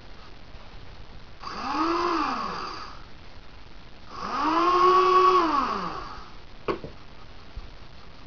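The two small electric drive motors of a homemade robot car whine up in pitch and back down twice as they are switched on and off, the second run longer and louder. A sharp click comes near the end.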